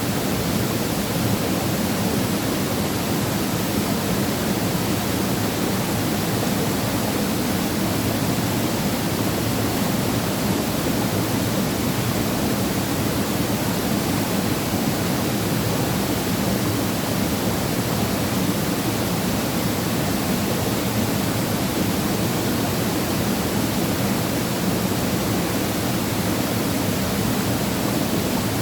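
Waterfall pouring in a mountain valley: a steady, unbroken rush of falling water, heaviest in the low range.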